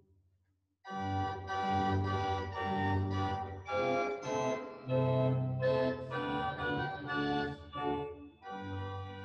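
Organ playing a hymn tune in full sustained chords, starting about a second in, with a brief break near the end.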